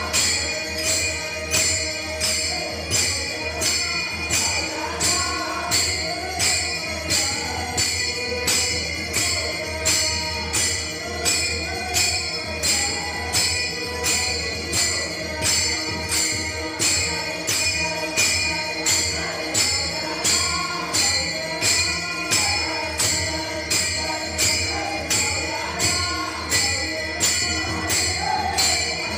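Warkari bhajan: many small brass hand cymbals (taal) clashed together on a steady beat, about three strikes every two seconds, over group singing and a harmonium.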